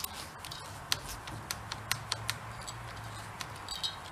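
Faint scattered clicks and light rubbing from a mini bike's rubber throttle grip being twisted back and forth by hand on the handlebar, freshly sprayed with WD-40 to free the gummy slide. A low steady hum sits behind it.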